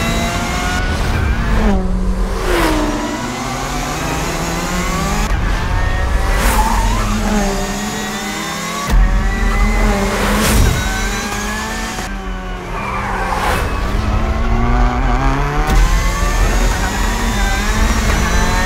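Peugeot 308 TCR race car's turbocharged 1.6-litre four-cylinder engine revving hard on track. The pitch climbs through each gear and drops at every shift, over several passes joined by abrupt cuts.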